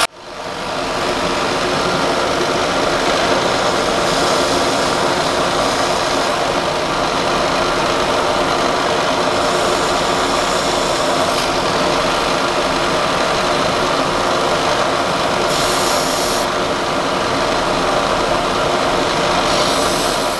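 An edge sander's belt runs steadily. A hiss of wood being pressed against the belt comes in several times, as small pieces are sanded to an angle.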